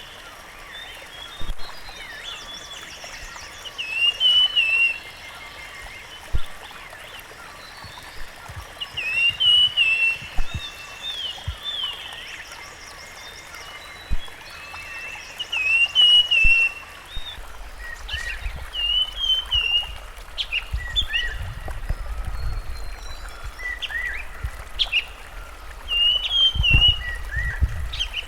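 Rusty-fronted Barwing singing: short, bright warbling phrases repeated every few seconds, with fainter calls from other birds in between. A steady hiss runs underneath, and a low rumble comes in past the middle.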